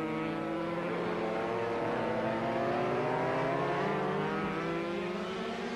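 Two-stroke 250cc Grand Prix racing motorcycles running at high revs, a continuous engine note whose pitch falls over the first couple of seconds and then climbs again.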